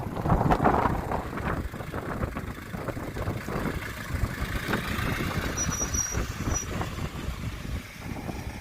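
Renault Master camper van on the move: a continuous low engine and road rumble, with a faint high tone about six seconds in.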